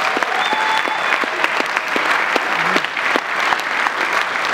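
Audience applauding: dense, steady clapping that fills the hall.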